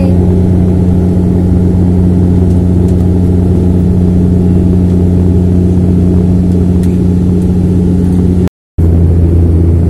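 Cabin drone of a high-wing turboprop airliner climbing after take-off: a loud, steady engine and propeller hum with a strong low tone. The sound cuts out completely for a fraction of a second near the end.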